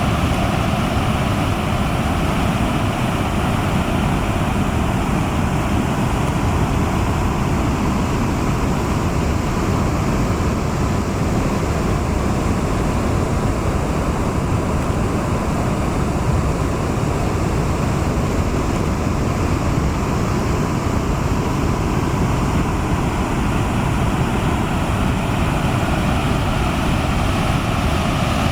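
Floodwater rushing in a steady, unbroken roar.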